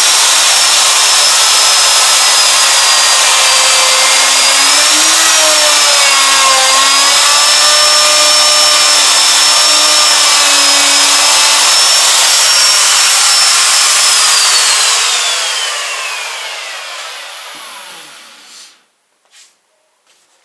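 Router running at full speed, its 45-degree bit cutting a bevelled groove into the edge of a melamine cabinet door, a loud high whine with a slight dip in pitch as it takes the load. After about fourteen seconds it is switched off and winds down with a falling whine.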